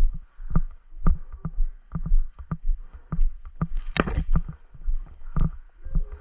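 Walking footsteps, low thumps about two a second, with a short rustle about four seconds in and a sharp click about a second later.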